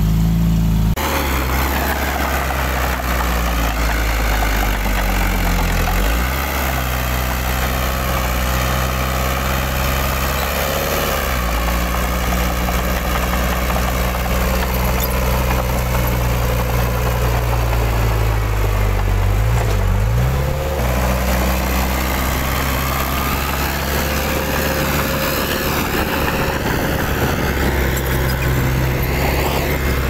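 Diesel engine of heavy earthmoving machinery running steadily, its pitch shifting up and down a few times as the load and revs change.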